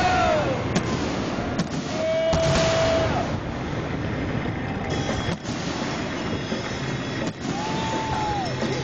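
Fireworks shells bursting with a few sharp bangs over a steady crackling hiss, while horns give long honks twice, one about two seconds in and one near the end.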